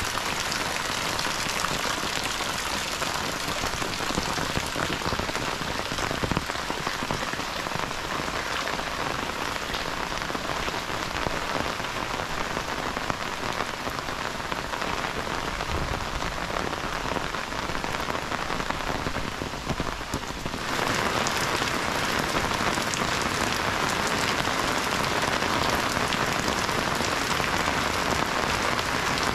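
Heavy rain falling steadily, a dense hiss of drops without a break; it turns louder about two-thirds of the way through.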